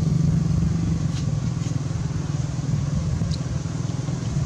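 An engine running close by, a steady low rumble, with a few faint clicks over it.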